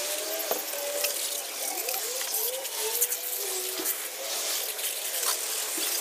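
Garden-hose spray nozzle jetting water onto a car's engine bay, a steady hiss of spray spattering over the engine cover and parts as the degreaser is rinsed off.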